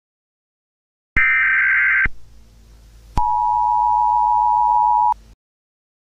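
Emergency Alert System-style warning tones: a loud, harsh burst of data tones lasting about a second, then after a short pause a steady two-tone attention signal held about two seconds that cuts off abruptly.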